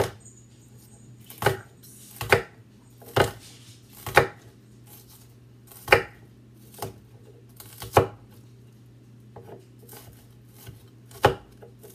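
Chef's knife chopping a small white onion on a wooden cutting board: about a dozen separate knocks of the blade against the board, unevenly spaced.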